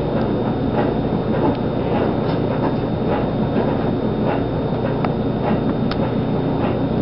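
Kitten purring close up: a steady, loud rumble that goes on without a break, with a few faint ticks over it.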